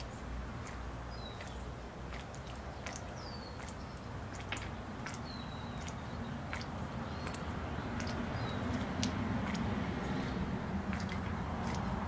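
Small bird-bath fountain splashing and dripping, with scattered sharp drip-like clicks. Several short, falling bird chirps are heard over it.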